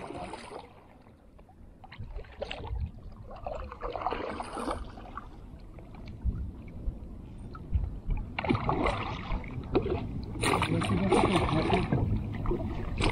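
Water splashing and sloshing around a fishing kayak, with louder splashes about eight and again about ten seconds in.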